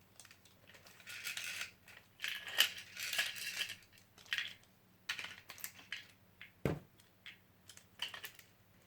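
Beyblade spinning tops clattering and scraping against each other and the plastic stadium, irregular clicks with short scraping bursts and one duller knock about two-thirds of the way through.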